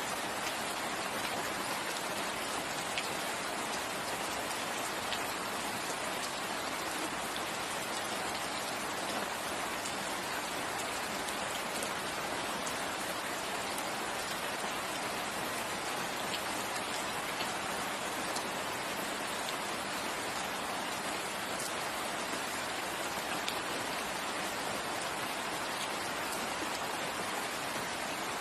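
Steady rain falling on leaves and ground, an even hiss with faint scattered drop ticks.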